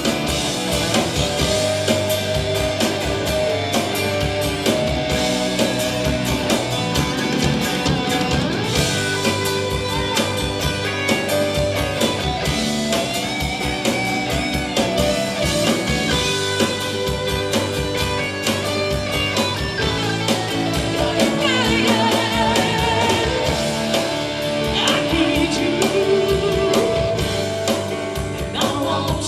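Live country band playing a mid-tempo song at full volume: drum kit keeping a steady beat under electric guitars, bass and keyboard, with a lead singer's voice at times.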